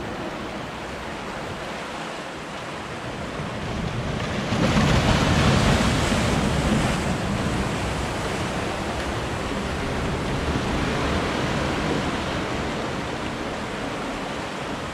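Heavy sea surf on the shore: a wave breaks about four and a half seconds in and is loudest for a couple of seconds, then settles into a steady rushing wash.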